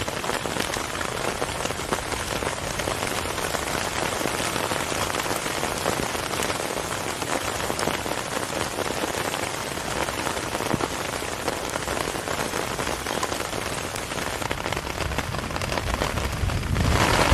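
Heavy rain pattering steadily on the hammock tarp overhead and the ground around it, with a low rumble of thunder building right at the end.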